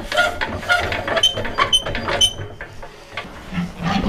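Pigs squealing in a string of short, high squeals, with lower grunting near the end.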